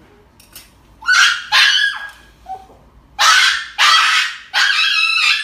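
Small dog screaming in fear while it is held for an injection, before the needle has gone in: five loud, harsh, high cries, two about a second in and three more in quick succession from about three seconds in.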